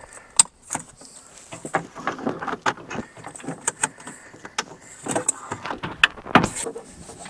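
Scattered sharp plastic clicks and rustling as electrical connectors are plugged in and the door trim panel of a Toyota Tacoma is handled, with a sharp click about half a second in and a cluster of louder clicks in the last few seconds.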